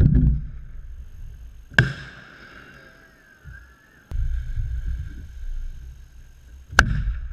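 Aerial fireworks shells bursting overhead: a boom dying away at the start, a sharp bang about two seconds in, low rumbling through the middle, and another sharp bang near the end.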